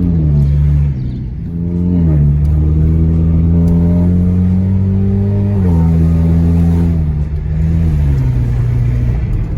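Straight-piped Honda Accord exhaust, loud, as the car accelerates through the gears: the engine note climbs steadily and drops sharply at each upshift, about four shifts in all.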